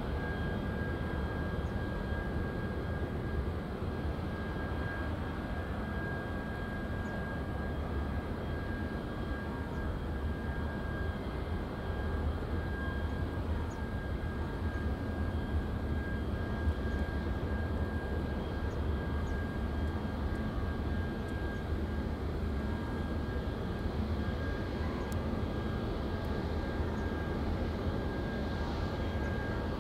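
Boeing 777-300ER's GE90 turbofans running at low taxi thrust: a steady rumble with a thin, steady high whine over it.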